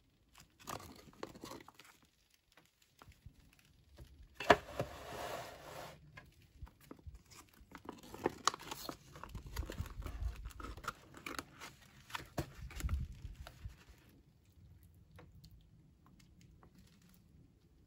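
Foil MRE retort pouch crinkling and rustling in gloved hands as creamy spinach fettuccine is squeezed out into a plastic tray. There is a sharp, tearing-like burst about four and a half seconds in, then irregular crackling and soft thuds until it grows quiet in the last few seconds.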